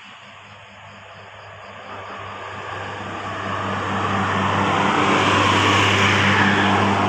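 A road vehicle approaching and passing close by, its engine and tyre noise swelling over several seconds to a peak about five to six seconds in, over a steady low engine hum.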